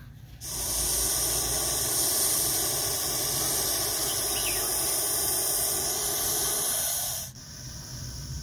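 Russell's viper hissing in one long, steady hiss that cuts off about seven seconds in.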